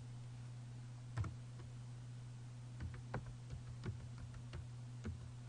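Computer keyboard keystrokes, a handful of separate key presses spaced out over several seconds as a short password is typed, over a steady low hum.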